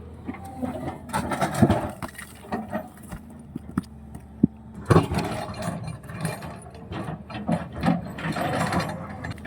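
Volvo excavator working material: its diesel engine runs steadily under irregular clanks and knocks from the bucket and the rock, in bunches about two seconds in, about five seconds in and near the end.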